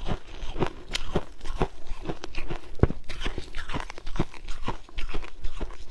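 Refrozen ice being bitten and chewed: a run of sharp, irregular crunches, several a second.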